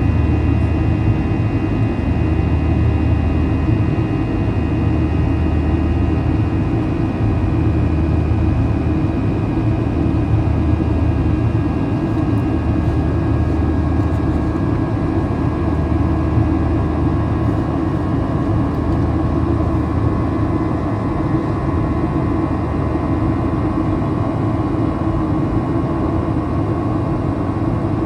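Boeing 737-800's CFM56-7B jet engines heard from inside the passenger cabin while airborne: a steady engine rumble with several high whining tones from the engines that drift slowly in pitch.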